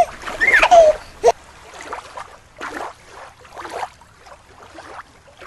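A short whistle-like tone gliding downward and a single click in the first second or so, then water sloshing and swirling in irregular swells.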